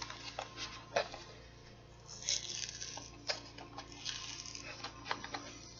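Small objects being handled: scattered light clicks and taps, with brief rustles about two seconds and four seconds in.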